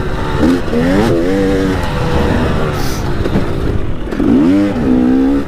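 KTM enduro dirt bike engine revving up and down under changing throttle while riding. The pitch climbs sharply about half a second in and again near four seconds, then levels off.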